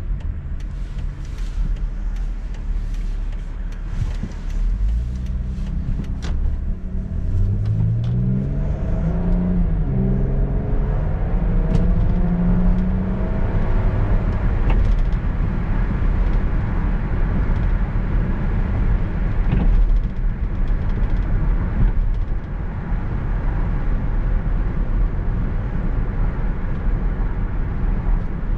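Car engine and road noise heard from inside the cabin: the car pulls away from a stop about four seconds in, engine pitch climbing in steps through the gears, then settles into a steady cruise with tyre rumble.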